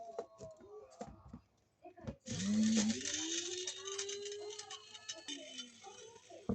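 Small electric mill grinding dried mitsuba leaves. The motor starts about two seconds in, spins up quickly to a steady gritty whirr, runs for about three seconds, then winds down falling in pitch. A few light clicks and taps come before it starts.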